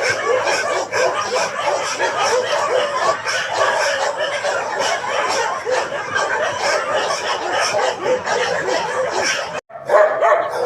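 Several dogs barking and yapping at once in a dense, continuous din. It cuts out briefly near the end, then single louder barks follow.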